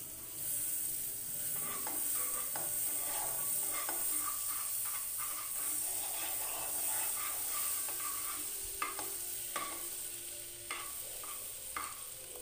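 Butter sizzling and foaming as it melts in a hot nonstick wok, stirred with a metal spoon that scrapes and taps against the pan; the taps grow sharper and more spaced out in the second half.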